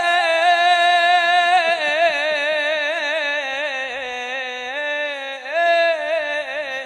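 A man's voice singing a Husseini elegy (latmiya) unaccompanied, holding one long drawn-out vowel with constant wavering ornaments. The pitch sinks slowly, steps up about five and a half seconds in, then settles again.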